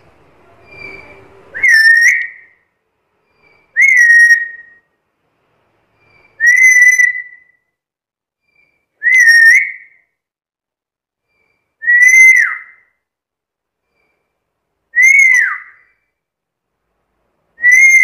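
A black-capped lory gives a series of seven short, loud whistles, one about every two and a half seconds. Each whistle stays on nearly the same pitch, and the later ones drop off at the end.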